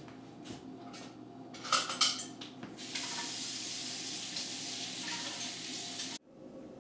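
Dishes clinking in a kitchen sink, then the tap running in a steady stream for about three seconds before cutting off suddenly.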